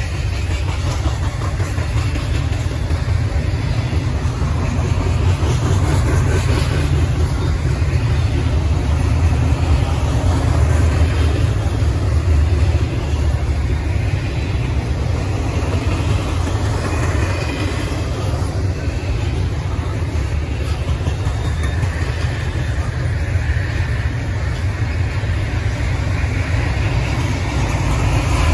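Freight train rolling past on the rails: a steady, heavy rumble of railcar wheels on track that swells slightly and never lets up.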